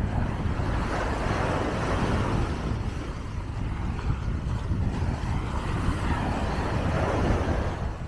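Wind buffeting the microphone over waves washing onto the beach. The surf swells about a second in and again near the end.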